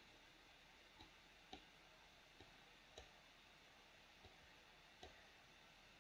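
Faint computer mouse button clicks, about six at irregular intervals, over near-silent room tone.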